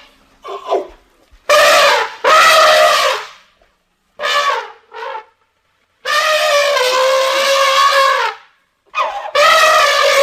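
Elephant trumpeting: a run of brassy calls of varying length with short breaks between them, the longest held for about two seconds midway.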